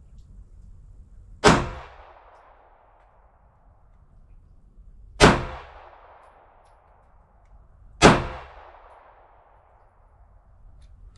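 Three single shots from a Polish P-64 pistol in 9x18 Makarov, a few seconds apart, each followed by a fading echo.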